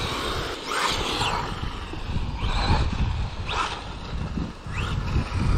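Brushless motor of a WLtoys 12428 RC car whining up in pitch in short throttle bursts, about four times, over a low rumble.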